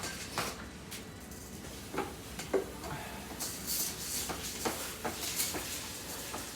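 Kitchen handling sounds: scattered light knocks and clicks of containers and utensils being moved about, with a brief rustle a little past the middle.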